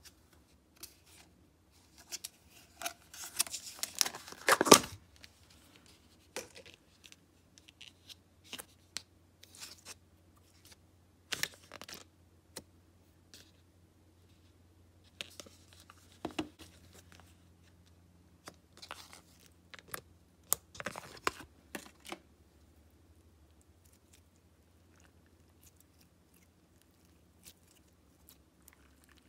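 Plastic tub lid being worked open, with a dense run of crackling clicks about two to five seconds in. Then slime is pulled from the tub and squeezed in the hands, giving scattered sticky crackles and pops over a faint low hum.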